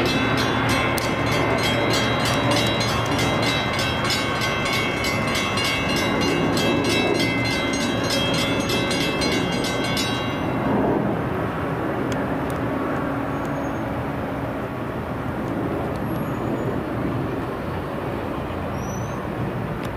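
Metra bilevel commuter train passing a road grade crossing while the crossing bell rings in a rapid even rhythm. The bell stops abruptly about halfway through, leaving a lower steady rumble.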